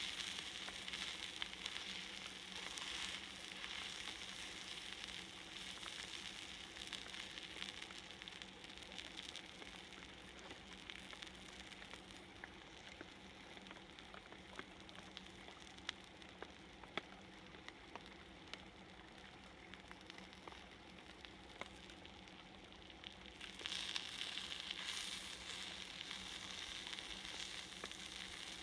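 Salted mackerel fillet sizzling on a hot iron griddle, with scattered small pops of spitting fat. The sizzle grows fainter in the middle and comes back stronger near the end.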